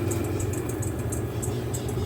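Mueller Popmatic 8 kg washing machine running mid-cycle: a steady motor hum with quick, light ticks repeating several times a second.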